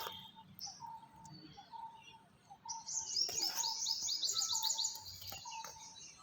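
Birds calling: a short mid-pitched note repeated about once a second, and a loud, fast run of high chirps about three to five seconds in.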